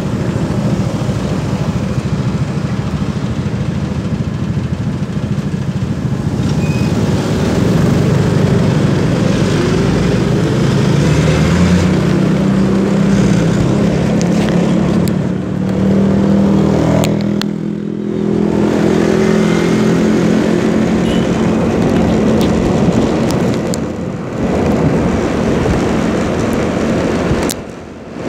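Road traffic heard from a moving motor scooter: steady engine noise that rises in pitch about ten seconds in as the vehicles pull away from a stop, then runs on steadily with a few brief dips.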